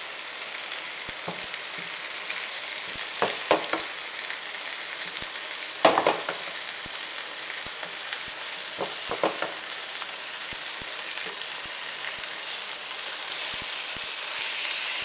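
Oil sizzling steadily in a frying pan of fried eggplant and browned onions, with a few short scrapes and knocks of a spatula against the pan: a pair about three seconds in, a louder one at about six seconds and a couple near nine seconds. The sizzle grows a little louder near the end.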